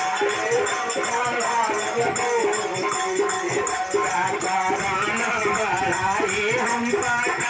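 Live devotional folk music: a harmonium carries the melody over steady jingling hand percussion.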